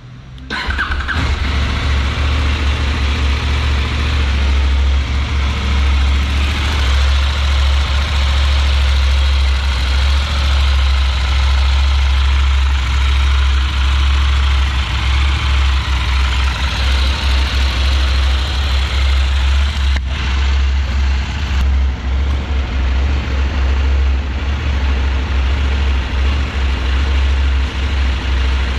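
A CFMOTO 800MT's parallel-twin engine is started on the electric starter, catching within a second, and then idles steadily with a deep, even note. This is the first start after fresh engine oil and a new oil filter.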